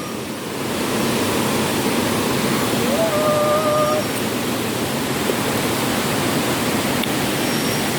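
Iruppu Falls waterfall rushing steadily, growing louder over the first second, with a brief held call about three seconds in.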